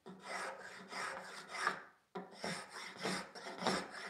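Veritas flat-bottom spokeshave cutting a walnut practice piece: one long push stroke, a short pause, then several quicker short strokes. The blade is chattering, which he guesses is from too much blade sticking out.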